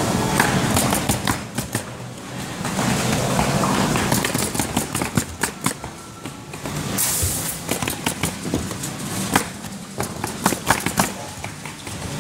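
Pneumatic roofing nailers firing in quick, irregular strings of sharp clacks as asphalt shingles are nailed down, several nailers going at once.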